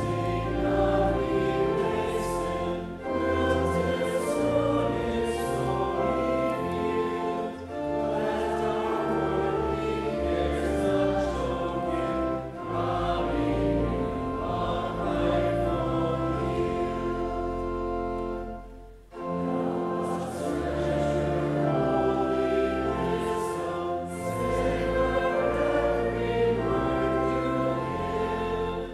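Congregation singing a hymn with instrumental accompaniment, with a brief pause between verses about nineteen seconds in.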